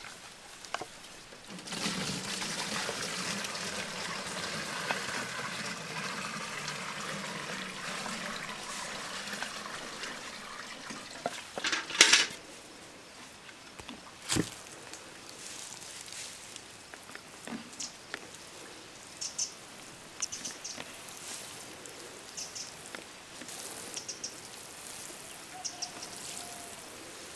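Water pouring for several seconds, then a plastic watering can's rose sprinkling water onto freshly smoothed garden soil. A couple of sharp knocks come midway.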